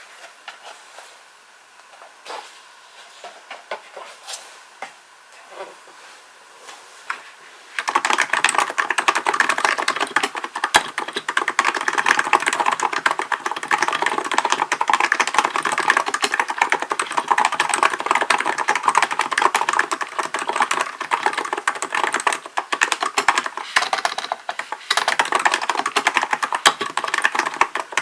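Typing on a Hansung GK898B electro-capacitive keyboard: a few scattered keystrokes, then from about 8 seconds in, fast continuous typing with a brief lull near the end.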